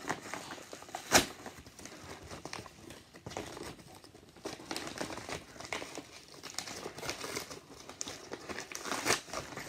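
Crinkling and crackling of an Amazon padded mailer being handled and torn open by hand, in a run of short irregular rustles. One sharp, loud crackle comes about a second in.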